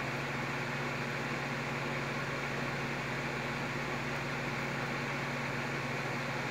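Electric fan running: a steady motor hum with a few low tones under an even whoosh of moving air.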